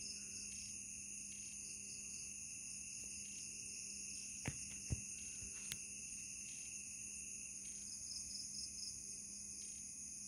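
Night insects trilling steadily in several high-pitched continuous bands, with a faint steady low hum beneath. Three short faint clicks come about halfway through.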